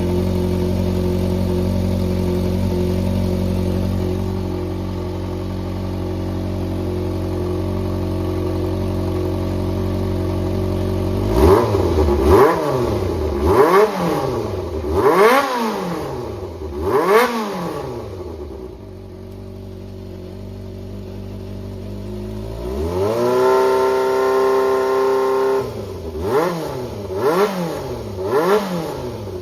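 Yamaha XJR400 (4HM) air-cooled inline-four engine idling steadily, then revved in five quick throttle blips, settling back to idle, held at a steady higher rev for a couple of seconds, and blipped several more times near the end. It runs cleanly, which the seller describes as free of abnormal noise and in top condition.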